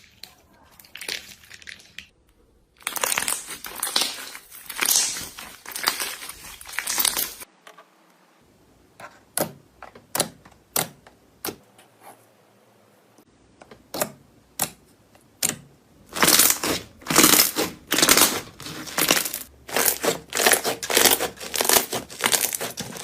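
Crunchy slime being squeezed and worked by hand, crackling and popping: two long runs of dense crackling, with a string of single sharp pops between them.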